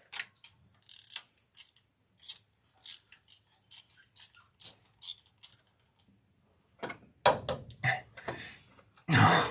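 Hand ratchet clicking in short, irregular strokes as a rusty fastener is worked loose, with a crunchy sound to it. In the last few seconds come several louder rasping scrapes.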